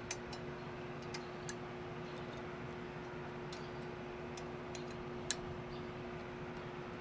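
Scattered light, sharp clicks as a hex key is worked into a set screw in a steel machinery-skate frame, with a steady low hum underneath.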